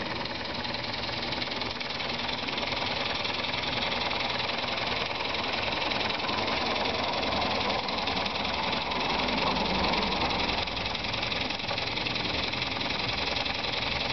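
Miniature brass model beam steam engine running on steam fed by hose from a small Mamod Minor 1 toy boiler, with a steady hiss of steam.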